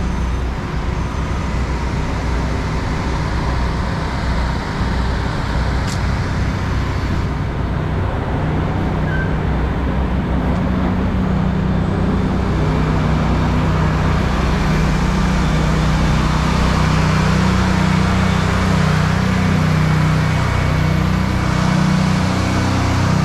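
Car driving: steady engine and road noise, with the low engine hum growing stronger about a third of the way in.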